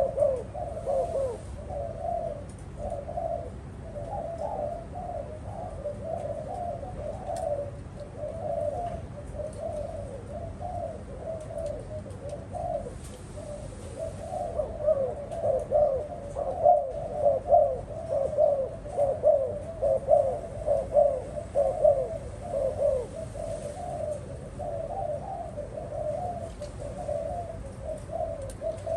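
Spotted doves cooing in repeated phrases that overlap and run on without a break.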